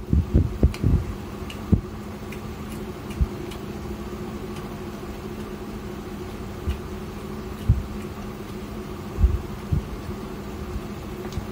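A man eating rice by hand: a cluster of chewing and mouth sounds and soft low thumps in the first second, a few more later on, over a steady electrical-sounding background hum.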